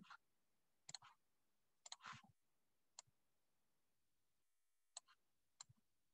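Near silence broken by about half a dozen faint, scattered clicks and taps of a stylus on a tablet as numbers are handwritten.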